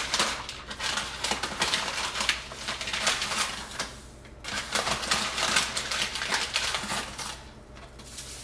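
Rapid clicking and scraping of a kitchen utensil against a container, with a short pause about four seconds in, stopping shortly before the end.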